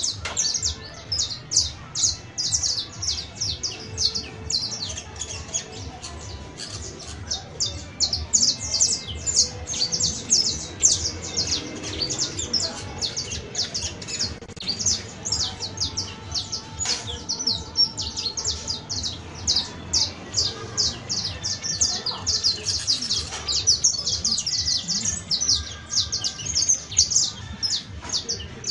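Saffron finch (Sicalis flaveola) singing: a long, unbroken run of rapid, high-pitched chirping notes, several a second.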